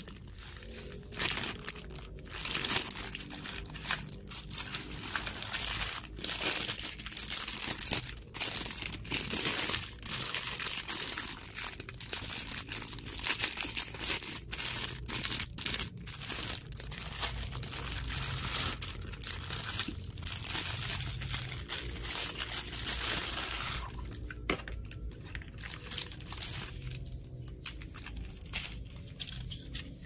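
Plastic packaging crinkling and rustling as it is pulled off fan parts by hand, with sharp crackles and tearing-like rips. It is dense for most of the time, then thins to occasional crackles over the last several seconds.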